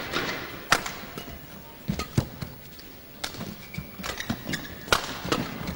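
Badminton rally: sharp cracks of rackets striking the shuttlecock, roughly one a second, traded back and forth.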